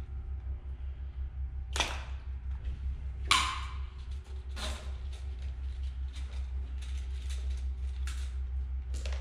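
Plastic parts of a stock in-tank fuel pump module clicking and snapping as they are worked apart by hand. Several sharp clicks, the loudest about two and three seconds in, over a steady low hum.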